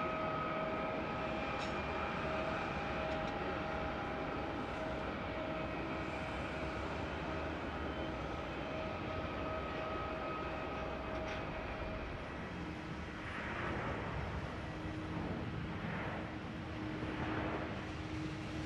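Jet aircraft engines running with a steady whine over a broad rushing noise. About two-thirds of the way through, the sound changes abruptly to a lower, steady hum with slow swells.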